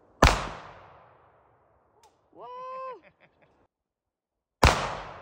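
Two pistol shots about four and a half seconds apart, each a sharp crack with a tail that echoes away over about a second. Between them comes a brief, pitched vocal sound.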